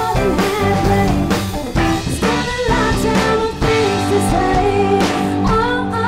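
Live rock band playing, with electric guitar and drum kit, and a woman's lead vocal coming in near the end.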